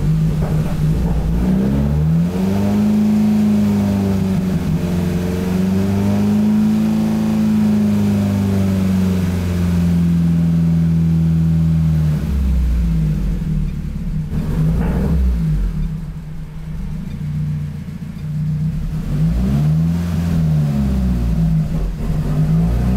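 Turbocharged Honda B16 four-cylinder in a Civic VTi running, its revs rising and falling in slow sweeps and easing back about halfway through.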